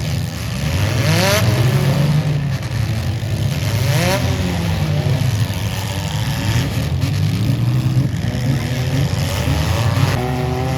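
Demolition derby cars' engines running and revving together, with pitch rising and falling as drivers throttle up.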